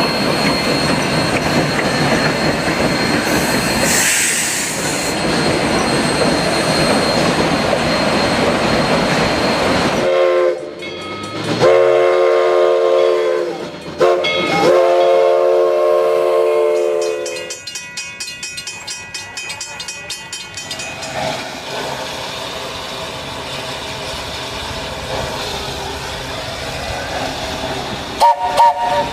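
Steam train running loudly on the rails, then its whistle sounding a chord about ten seconds in: one short blast and then two long ones. After the whistle the running noise is quieter and steady.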